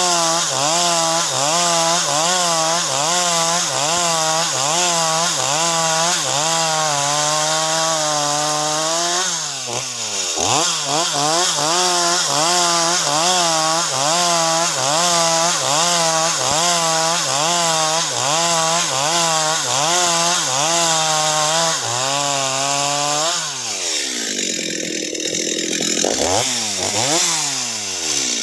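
Stihl two-stroke chainsaw ripping lengthwise through a timber slab, running at high revs with the pitch wavering as the bar works through the wood. Twice the revs sag and climb back: about ten seconds in, and for a few seconds near the end.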